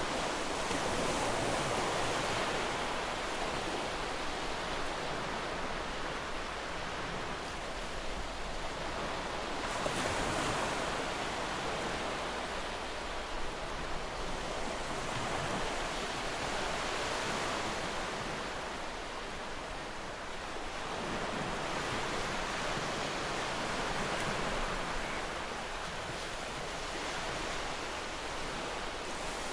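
Gentle ocean waves washing onto the shore, a continuous surf rush that swells and eases every few seconds.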